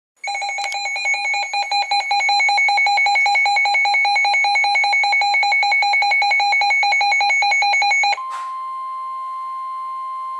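Weather radio alert alarm sounding as rapid, high-pitched beeping for about eight seconds. It then switches to a quieter single steady tone near 1 kHz, the NOAA Weather Radio warning alarm tone that announces a warning broadcast.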